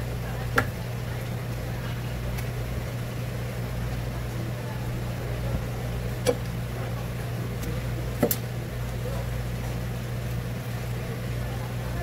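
A kitchen knife knocks sharply on a cutting board three times, the last a quick double knock, over a steady low hum.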